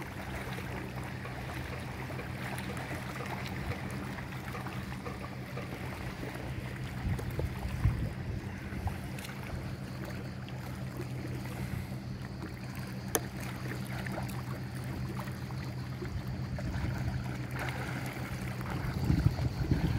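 A boat's motor running steadily, a low even hum, over the wash of sea water, with a few louder gusts of noise.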